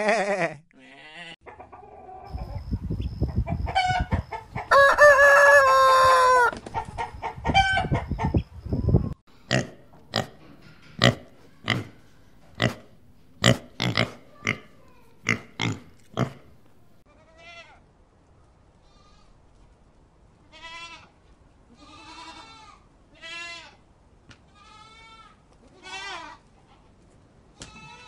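Farm animals calling in turn. A goat bleats at the start, then comes a loud stretch of low noise with a long held cry in the middle of it. A pig grunts in short, sharp bursts about twice a second for several seconds, followed by a series of quieter short calls.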